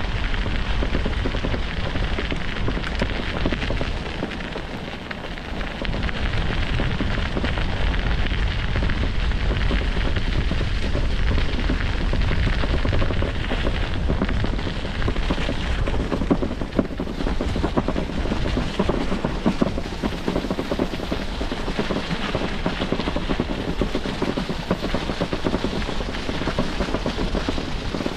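Steady rumble of wind buffeting the microphone of a camera on a moving bicycle, with road noise underneath. It eases briefly about five seconds in.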